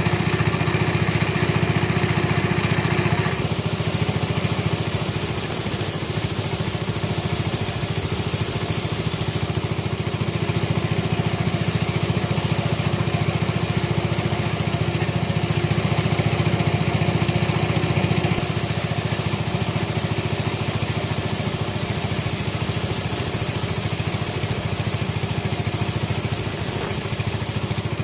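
Engine-driven sawmill running with a steady drone. The higher hiss shifts abruptly a few times.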